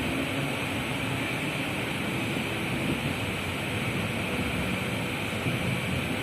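Passenger train running, a steady rumble and hiss with no break.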